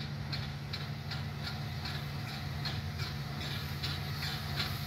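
Stanier Black Five two-cylinder steam locomotive approaching under steam, its exhaust chuffing in an even beat of about two and a half to three chuffs a second and getting a little louder near the end, over a steady low drone.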